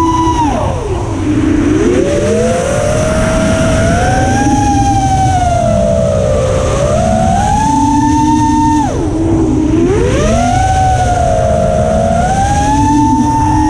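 FPV racing quadcopter's brushless motors and propellers whining, the pitch rising and falling with the throttle. It drops sharply about half a second in and again near nine seconds, then climbs back, over a low rush of wind on the drone's onboard camera.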